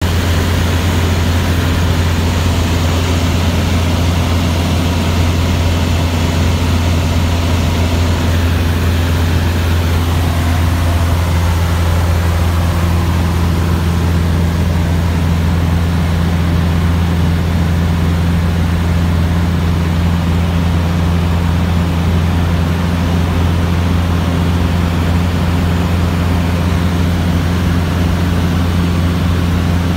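Cessna 150's Continental O-200 four-cylinder engine and propeller in cruise flight, heard inside the cabin as a loud, steady low drone. Its tone shifts slightly lower about a third of the way through.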